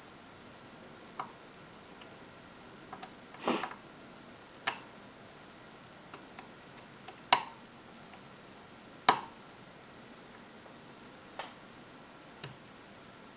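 Irregular sharp clicks and ticks of a hook pick and tension wrench working the pins and core of a five-pin Union euro cylinder during picking, about a dozen spread unevenly, the loudest two a little past the middle.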